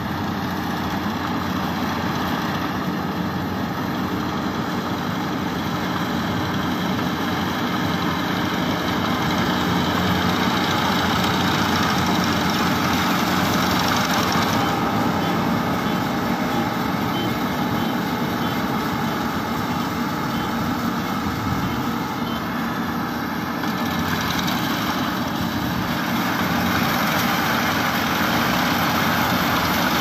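Engine of a small rice combine harvester running steadily as the machine cuts through standing rice, getting louder as it comes closer.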